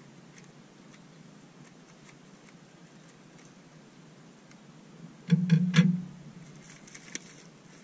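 Scissors snipping faintly at a stiff plastic clamshell package. About five seconds in comes a loud, brief burst of plastic crackling as the package is worked open.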